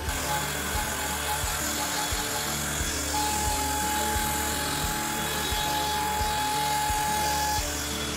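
Makita trim router running as the spindle of a CNC router, its bit carving letters into MDF: a loud, dense hiss of spindle and cutting, with a steady whine that sets in about three seconds in. Background music plays underneath.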